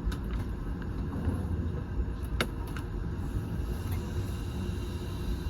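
Keiyo Line commuter train running noise heard from inside the front car: a steady low rumble of wheels on rails at reduced speed under a strong-wind speed restriction, with a few sharp clicks, the clearest about two and a half seconds in.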